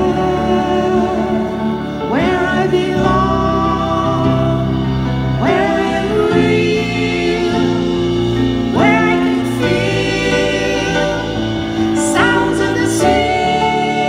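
Progressive rock band playing live: layered singing voices swoop up into a new held phrase about every three seconds, over sustained keyboard chords and bass.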